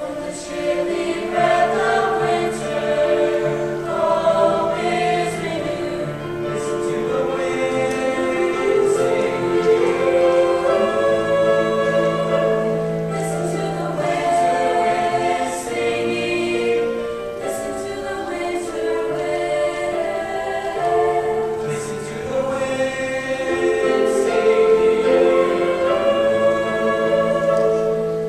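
A mixed choir of men's and women's voices singing in harmony, with chords held and moving from note to note and the words' consonants coming through.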